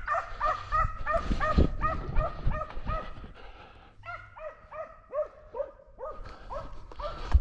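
Hunting dog barking in a fast, even series of short barks, each dropping in pitch, about four a second, with a short break about three seconds in before the barking resumes.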